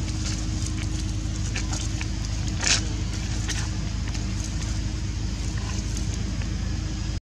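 A steady low hum, like a running engine, with short high-pitched ticks or squeaks scattered over it; the strongest comes about three seconds in. The sound drops out for a moment at the very end.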